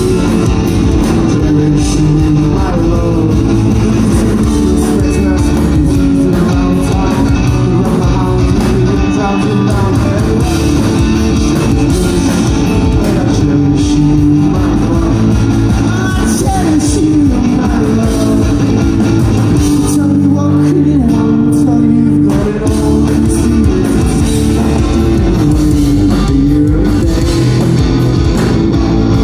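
Live rock band playing loudly, electric guitars, bass guitar and drums, heard from the audience. The deepest bass drops out briefly about twenty seconds in.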